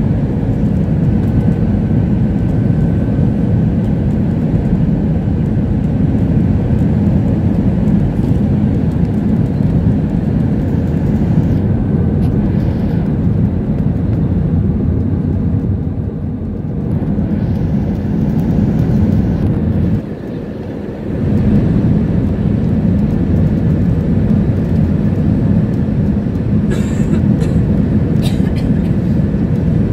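Steady cabin noise inside an Airbus A320 descending on approach: the engines and the airflow make a deep, even rumble through the fuselage. The noise drops briefly about twenty seconds in, and a few faint clicks come near the end.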